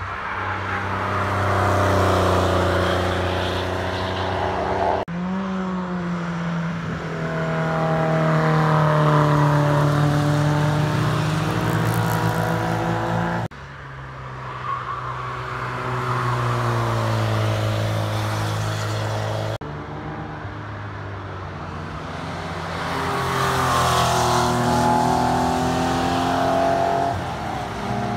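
Classic cars' engines passing through a corner of the Nürburgring Nordschleife, revving up in pitch as they accelerate. The sound cuts abruptly from one car to the next three times.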